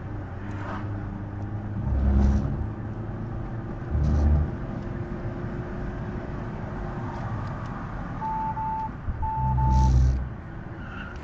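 A vehicle engine running steadily, with louder low rumbles about two, four and nine and a half seconds in. Four short beeps, in two pairs, sound near the end.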